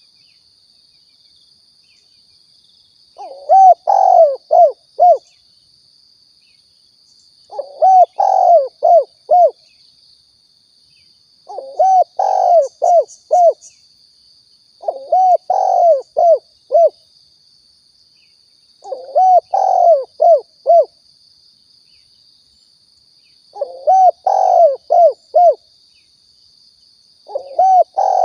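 Spotted dove (tekukur) giving its cooing song, a phrase of several low, arched coos repeated about every four seconds, seven times. It is a recorded call of the kind used to lure doves.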